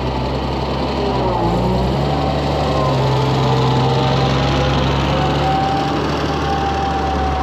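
Farm machine engine running steadily, its speed picking up about two seconds in and then holding.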